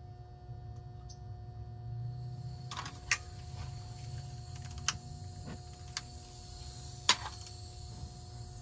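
A few sharp, isolated clicks and light taps of tools and equipment being handled, a second or two apart, over a low steady background hum.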